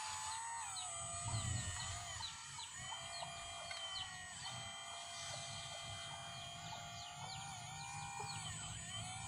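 Hydraulic pump of a radio-controlled Kobelco SK200 scale excavator whining steadily, its pitch dipping briefly several times as the boom and arm move.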